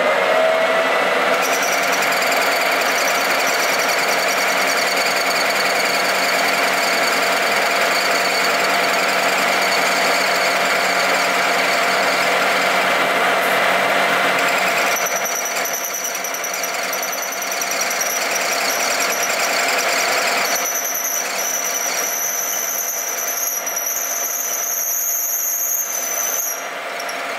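Metal lathe running, its three-jaw chuck spinning a lathe center while a cutting tool turns a cone on it: a steady machine whine with a squeal from the cut. From about 15 seconds in, higher ringing tones join and then stop about a second before the end.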